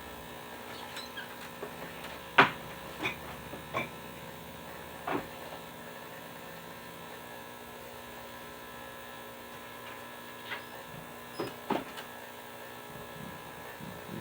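Ultrasonic cleaner buzzing steadily with a watch case in its bath, the water dirty, overlaid by a few sharp clicks and taps of small objects, the loudest about two and a half seconds in and a couple more near the end.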